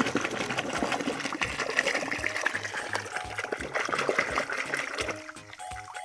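Water splashing and sloshing as a hand swishes a muddy plastic toy vehicle through shallow swamp water to wash it, dying down about five seconds in. Background music with a steady beat plays underneath.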